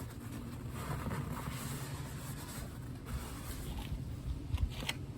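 Oil drain pan being cleaned out: rubbing and scraping, with a few light knocks near the end, over a steady low hum.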